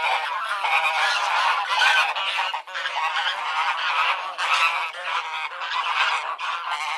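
Several geese honking together, their calls overlapping in a continuous chorus with hardly a gap.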